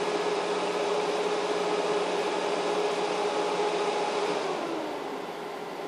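The cooling fan of a Liebert UPStation GXT 3000VA UPS runs as a steady whir with a humming tone during the unit's start-up self-test. About four and a half seconds in it winds down, its pitch falling and the sound getting quieter.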